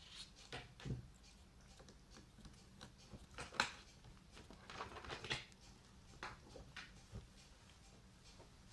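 Cats shifting about in and against a torn cardboard box, making faint, scattered rustles and scratches on the cardboard, with the sharpest scrape about three and a half seconds in.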